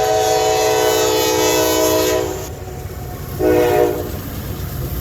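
Norfolk Southern diesel locomotive's multi-chime air horn sounding over the low rumble of the approaching train: a long blast that ends a little past two seconds in, then a short blast about a second later, in the long-long-short-long pattern of a grade-crossing signal.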